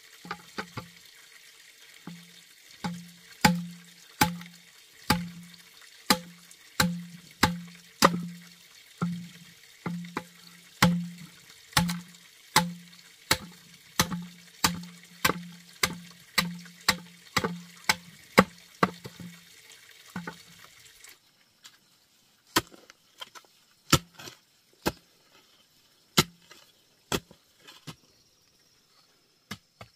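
Steady chopping, about two strokes a second, each a sharp knock with a dull thud, over a constant hiss like running water. About two-thirds of the way through, the hiss cuts off and the strokes come slower and sparser.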